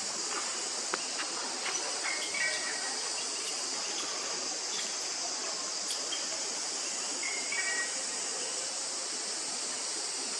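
Steady high-pitched drone of an insect chorus in forest, with a short two-note chirp near the start and again after about five seconds, and a few faint clicks.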